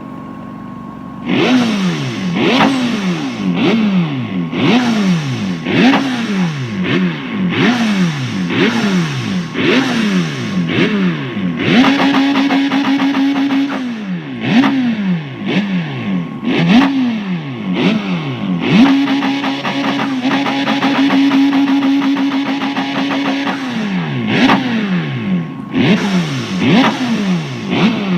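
Mazda RX-7's rotary engine being revved in quick repeated blips, each rising sharply and falling back, starting about a second in. Twice it is held at steady revs for a few seconds.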